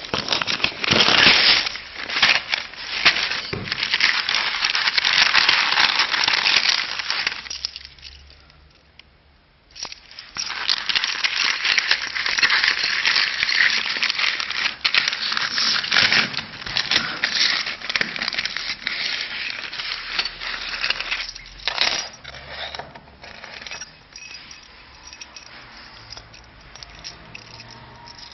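Close handling noise: material rustling and crinkling right at the microphone, with many small crackles. It stops for about two seconds partway through, starts again, and dies down to a softer rustle over the last several seconds.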